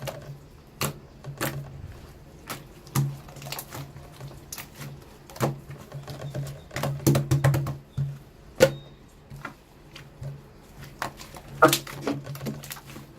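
Slime being squished and poked by hand, making irregular sticky clicks and pops, several a second.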